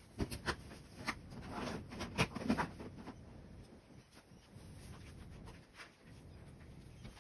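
A few light taps and clicks with soft rustling in the first three seconds, then only faint handling noise.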